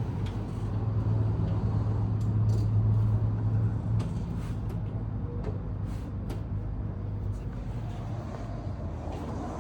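Suzuki Ertiga car engine running with a steady low hum that swells for a few seconds near the start and then settles. Light ticks and clicks sound over it.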